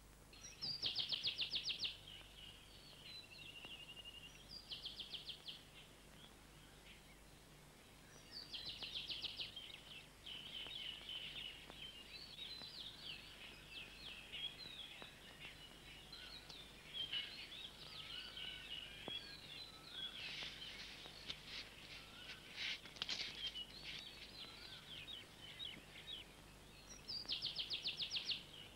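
Faint birdsong: four rapid chirping trills of about a second each, with scattered twittering calls between them.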